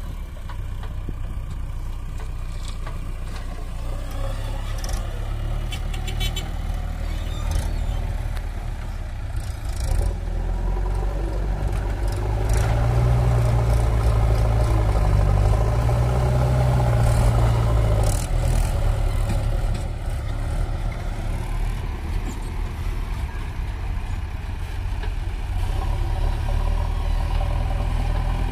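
JCB 3DX backhoe loader's diesel engine running steadily, louder for several seconds midway as the loader bucket is worked, with a few light clanks from the machine.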